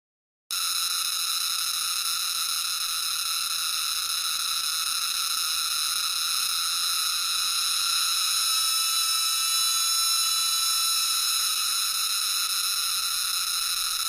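Cicada calling: a loud, steady, high-pitched buzzing drone that starts abruptly about half a second in and holds without a break.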